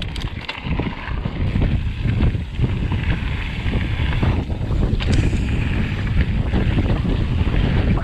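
Wind rushing over the microphone while a titanium hardtail mountain bike's tyres rumble down a gravel trail, with scattered small clicks and rattles from the bike.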